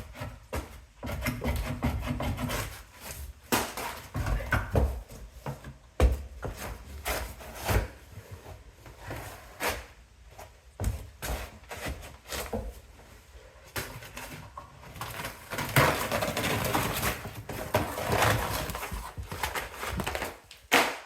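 Rotten, termite-damaged wooden floor being pried up and broken apart by hand: irregular knocks and cracks of splitting wood mixed with scraping and crunching, the loudest crack about six seconds in and a longer spell of continuous scraping and crunching near the end.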